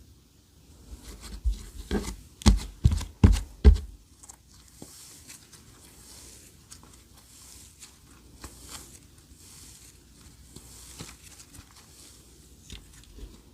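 Clear slime being squeezed and pressed by hand: a quick run of about six loud sticky pops, then softer crackling and rustling as it is stretched and folded.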